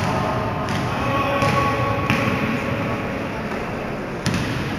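Basketball game sound in a sports hall: a handful of sharp ball bounces or thuds, about four in all, over a steady din of players' movement and voices.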